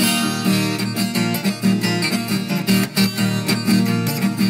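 Instrumental break in a Brazilian viola song: viola caipira and guitar play quick plucked notes over strummed chords.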